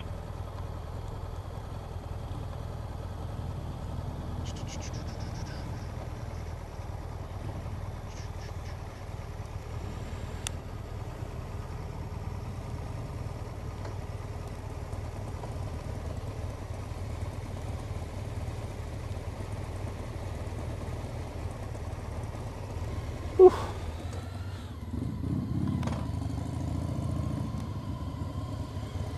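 Motorcycle running at low speed, a steady low engine hum with wind and road noise, as heard from on the bike. About 23 seconds in there is one short, sharp, loud sound, and near the end engine sound builds as it draws up beside other motorcycles.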